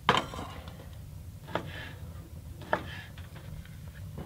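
Kitchen utensils at work at a frying pan: three clacks and scrapes, about a second apart, as a wooden spoon moves butter in the pan and a knife scrapes diced meat off a wooden cutting board into it.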